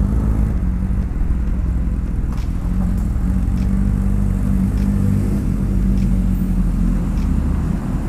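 Honda CB750K inline-four motorcycle engine running steadily at low revs, a deep even rumble with no revving.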